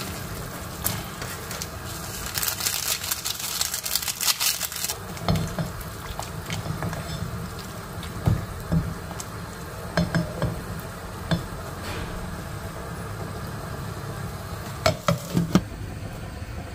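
Vegetable soup boiling in a pot while it is stirred with a silicone spatula. There is a denser splashy stretch for a few seconds near the start and several light knocks of the spatula against the pot.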